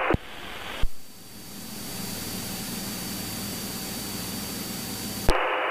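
Cessna 182 light aircraft in cruise: a steady drone of the piston engine and propeller under a rush of wind hiss, with a thin steady whistle. A sharp click comes just under a second in.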